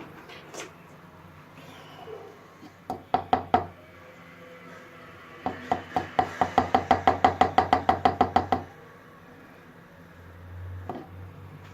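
Repeated knocking of a kitchen utensil against a container while chocolate spread is transferred out of the blender: three or four knocks about three seconds in, then a quick, even run of about twenty ringing taps, some seven a second, lasting about three seconds.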